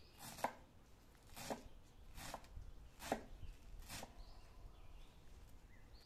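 Large kitchen knife chopping a pile of fresh green herbs on a cutting board: six sharp knocks of the blade on the board, irregularly spaced, stopping a little after two-thirds of the way through.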